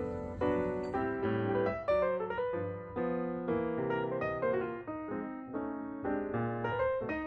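Background music: piano playing a melody with chords, notes struck in quick succession.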